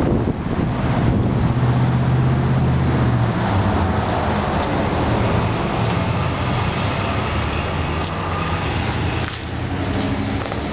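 A motor vehicle engine running steadily, a low hum that is strongest a couple of seconds in, over road traffic noise.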